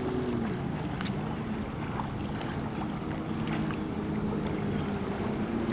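Boat motor running steadily, its pitch dropping a little about half a second in, with wind on the microphone.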